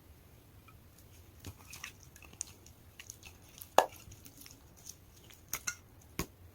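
Glitter slime being handled, giving irregular sticky clicks and small pops, the loudest about four seconds in.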